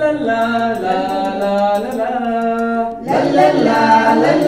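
Unaccompanied singing in long held notes; about three seconds in the singing turns fuller and busier.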